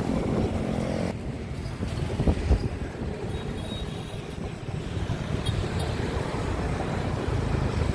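Outdoor street and riverside ambience: a steady low rumble of wind on the microphone and traffic, with a short thump about two seconds in.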